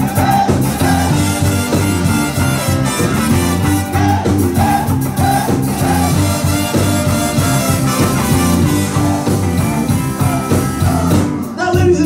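Live ska band playing: a horn section of trumpets and saxophone over electric guitar, bass and keyboard.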